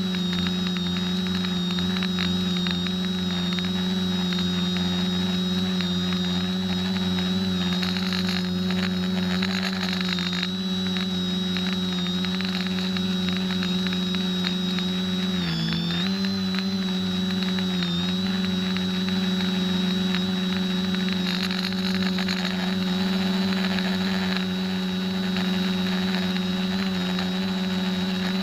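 X550AIOP quadcopter's electric motors and propellers buzzing steadily in flight, heard from the camera mounted on the craft, with a high steady whine above the hum. The pitch dips briefly about fifteen seconds in and again a couple of seconds later.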